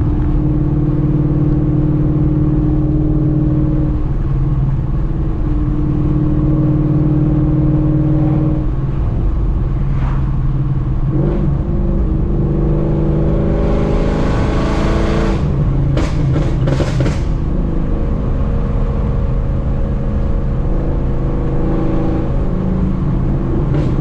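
Ford Mustang GT's Coyote 5.0 V8 with long-tube headers, X-pipe and muffler delete (straight-piped, burble tune), heard from the cabin cruising steadily. Midway it revs up through the gears, then cuts off suddenly into a short run of sharp crackles and pops. Another burst of crackles comes near the end.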